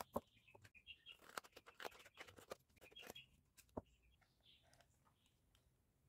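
Faint clicks, taps and scrapes of a small handmade box covered in aluminium can sheet, and a hand tool, being handled and worked on, coming thickly through the first four seconds and then dying away.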